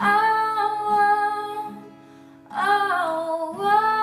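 A young girl singing long wordless "ooh" notes over a plucked guitar accompaniment. There are two held notes with a short break about two seconds in; the second dips in pitch and comes back up.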